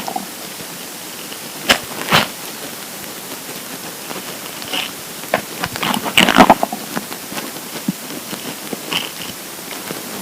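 An empty, hungry stomach gurgling over a steady hiss: two sharp pops about two seconds in, and a longer run of bubbling gurgles around the middle.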